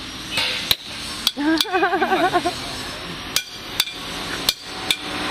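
Hand hammers striking metal on a blacksmith's anvil: about six sharp, ringing blows at an uneven pace. A short wavering tone, like a voice, comes about two seconds in.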